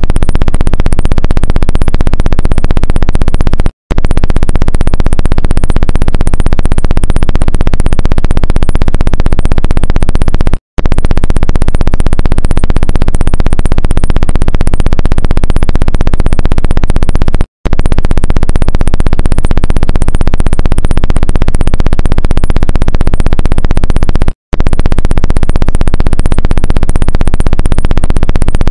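Loud, heavily compressed synthesizer music, the trend's backing track, cutting out briefly four times at even spacing of about seven seconds.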